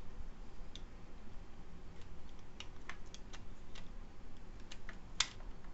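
Scattered small clicks and taps of plastic case and fan parts being handled and pressed into place, with a sharper click about five seconds in.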